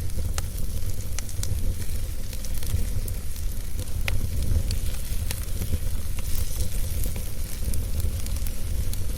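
Wood fire burning in a fireplace: a steady low rumble of the flames with scattered sharp crackles and pops from the burning wood.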